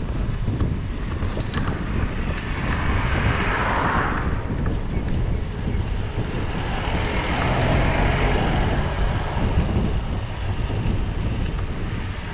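Wind rumbling on the microphone of a camera on a moving bicycle, with the noise of passing traffic swelling twice, around 3 to 4 seconds in and again around 8 seconds in.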